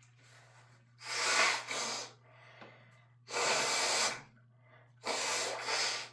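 A person with a cold blowing their nose hard three times, each blow about a second long.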